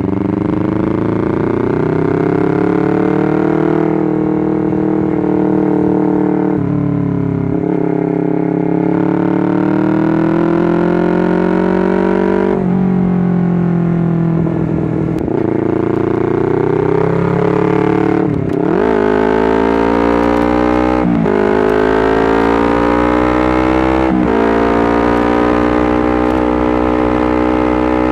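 Honda CBR250RR motorcycle engine running under way. Its note rises and falls with the throttle, and it breaks off briefly several times where it drops and picks up again.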